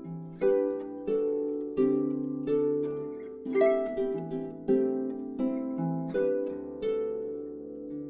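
Background music of plucked-string notes, a few a second, each ringing out and fading, over a low held bass.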